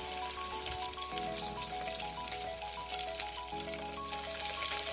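Chopped shallots and curry leaves sizzling in hot coconut oil with mustard seeds and dried red chillies in a clay pot, a steady crackle with many fine pops.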